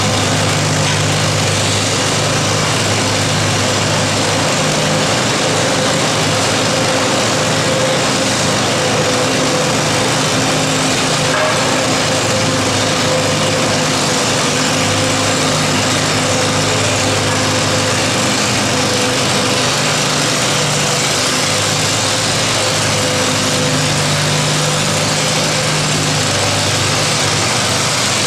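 Allis-Chalmers row-crop tractor engine idling steadily while hitched to the pulling sled, not yet under load.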